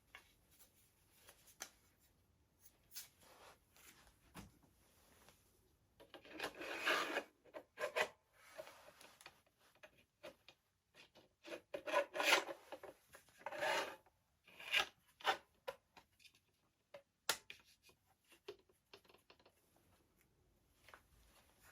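Parts being handled and rubbed together: irregular scraping and rasping with scattered clicks, in two louder spells about six and twelve seconds in.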